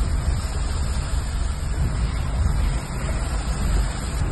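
Car driving slowly through shallow floodwater, heard from inside: a steady low rumble with a hiss over it.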